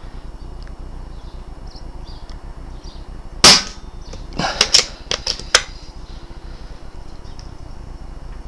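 A single shot from a BSA R10 precharged pneumatic air rifle about three and a half seconds in, a sharp crack that is the loudest sound. About a second later comes a quick run of sharp clicks and knocks.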